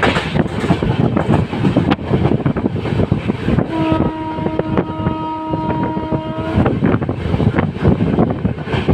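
WAP7 electric locomotive's horn sounding one steady blast of about three seconds, starting a little before the middle, over the loud rumble and wind noise of the train running at speed, with wheel clicks over the rail joints.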